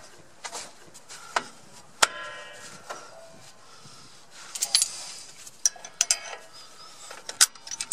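Vice grips and steel drum-brake hardware clinking and clicking as the locking pliers are worked off a freshly hooked brake return spring: a string of sharp metallic clicks, a few ringing briefly.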